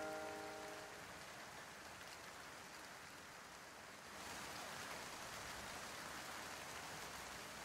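Steady rain falling: a faint, even hiss that grows a little louder about four seconds in.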